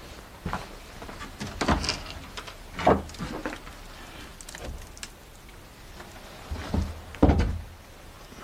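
Hinged wooden lid of an old wooden bin being handled: knocks as it is lifted open, then a loud thud near the end as it drops shut.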